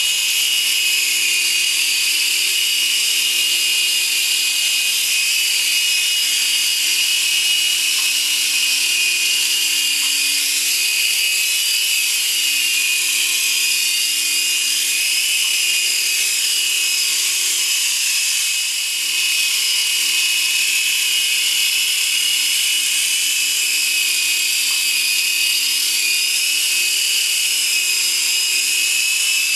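3-channel infrared-controlled indoor micro helicopter flying: a steady high-pitched whine from its small electric motors and spinning rotors, with one brief dip in loudness about two-thirds of the way through.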